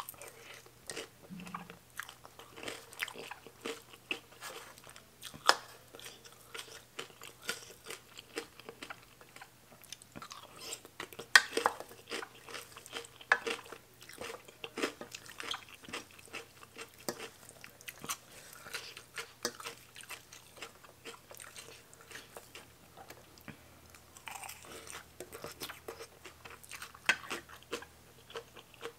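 A person chewing and crunching mouthfuls of rice noodles in curry with raw green vegetables, with irregular sharp crunches and clicks, the loudest about eleven seconds in.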